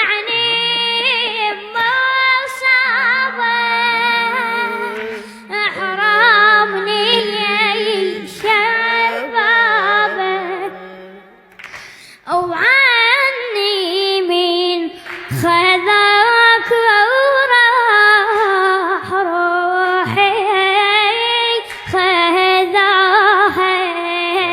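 A woman's voice singing a slow, mournful Arabic lament unaccompanied, the pitch wavering and bending on long held notes. The singing breaks off for about a second near the middle, then resumes.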